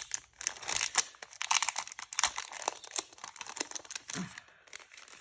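Sheets of craft paper rustling and crinkling as they are handled and leafed through, in irregular quick crackles.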